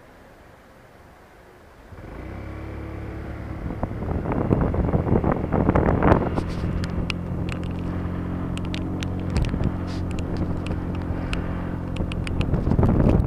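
Honda Dio scooter engine starting about two seconds in and then running at a steady idle, with a rush of noise partway through and light clicking over it.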